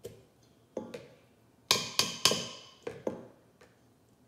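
Hand masher mashing strawberries in a stainless steel bowl: about eight uneven knocks. The hardest strikes, a little past the middle, set the metal bowl ringing.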